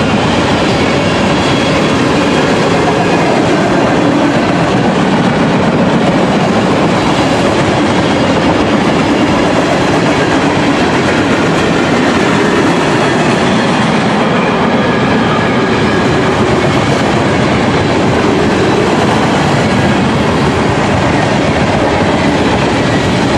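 Freight train cars, tank cars and boxcars, rolling past close by: a loud, steady rumble of steel wheels on the rails.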